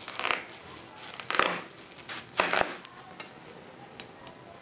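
Large kitchen knife cutting a whole watermelon in half: three short crunching strokes through the rind, about a second apart, then a few light clicks.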